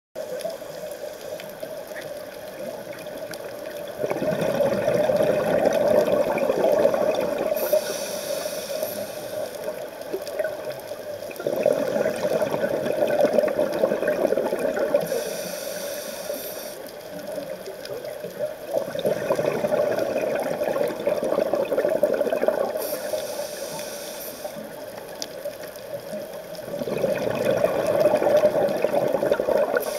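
Scuba diver's own breathing through a regulator underwater: a short high hiss on each inhale, then a longer rush of exhaust bubbles on each exhale, about every seven to eight seconds, four breaths in all.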